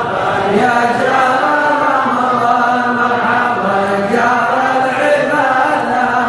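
Men's voices chanting a devotional Arabic poem (qasida) to a slow melody, with long held notes that bend slowly up and down.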